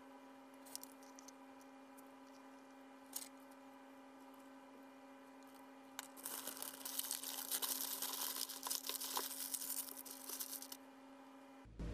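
Hands working on a tortilla wrap: a couple of light clicks as chopsticks set bell pepper strips down, then about five seconds of crisp, crackly rustling as shredded cabbage and the paper under the wrap are handled. A steady faint hum runs underneath.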